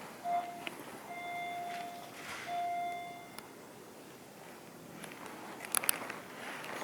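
Three electronic beeps at one pitch, a short one followed by two longer ones, then a few sharp clicks near the end.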